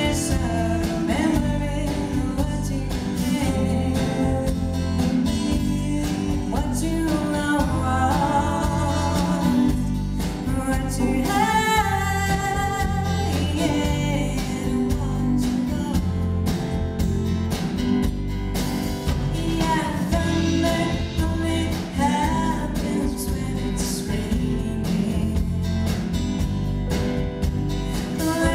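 A woman singing lead into a microphone with a live band of drums, acoustic guitar and keyboards playing behind her, recorded from the audience.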